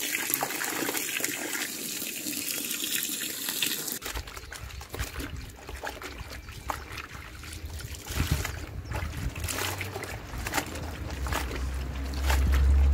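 Water from an outdoor tap pouring into a plastic tub of cloth napkins. About four seconds in, the sound changes to hands sloshing, rubbing and wringing the napkins in the water, with irregular splashes and a low rumble that grows loudest near the end.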